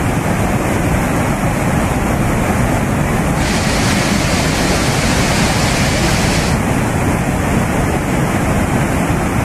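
Steady rushing of a fast, muddy flash-flood river in full spate, with a brighter hiss added for about three seconds in the middle.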